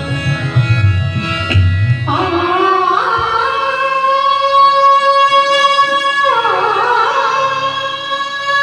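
Hindi devotional bhajan music: sustained electronic keyboard notes with hand-drum beats in the first two seconds, and a melody sliding between notes twice.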